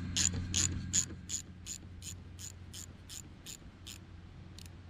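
Ratchet wrench clicking at an even pace, about three clicks a second, as it runs down the nut on the rear wiper arm's mounting stud, snugging it but not tightening it fully. The clicks stop about four seconds in, with one more near the end.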